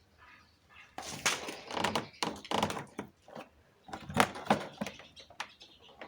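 Plastic door-trim cover being worked loose by hand: irregular clicks, scrapes and knocks, the loudest knock about four seconds in.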